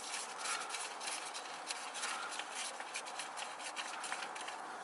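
Faint rubbing and light clicking of metal parts being handled and fitted together: the pieces of a differential bushing press tool.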